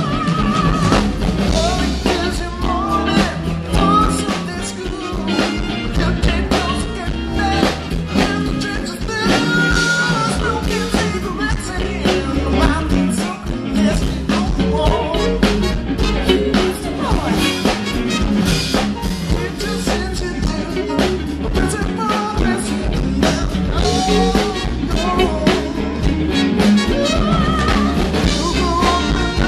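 A rock band playing a song with a singer: drums, guitar and a lead vocal.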